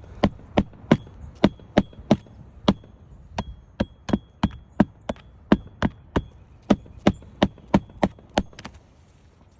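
Hammer driving roofing nails through asphalt shingles: about two dozen sharp strikes at roughly three a second, many followed by a short metallic ring. The strikes stop about a second before the end.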